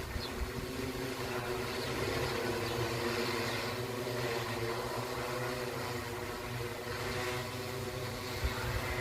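A large drone in flight: the steady hum of its propellers, holding an even pitch.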